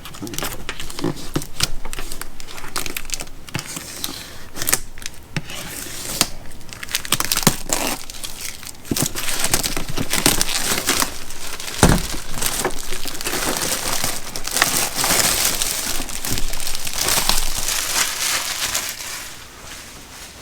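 Paper wrapping being torn and crumpled off a boxed socket set, a continuous crackle of small rustles and rips, with one low knock about halfway through. The crackle dies down near the end.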